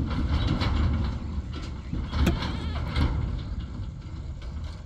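Heavy dump truck's diesel engine labouring up a steep dirt track: a low rumble that fades as the truck pulls away, with a few sharp knocks or rattles, the loudest a little over two and three seconds in.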